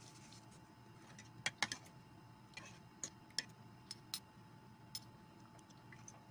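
Eating with a metal spoon: faint, irregular clicks and taps of the spoon against the dishes, about a dozen spread through the few seconds.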